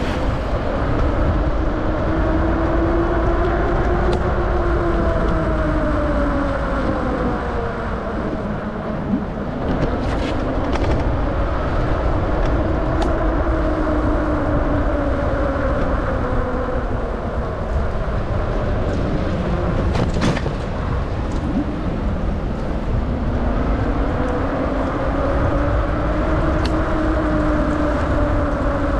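Riding a bicycle in the rain: a steady low wind rumble on the microphone and road noise, with a hum that slowly rises and falls in pitch, and a few sharp clicks.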